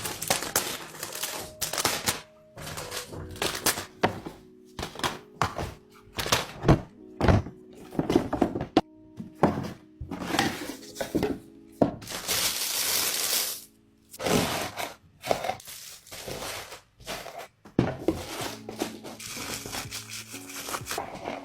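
Handling sounds of an iPhone 15 box and its packaging being opened: repeated thunks, taps and rustles, with one longer tearing or peeling noise about twelve seconds in. Soft background music with held notes plays underneath.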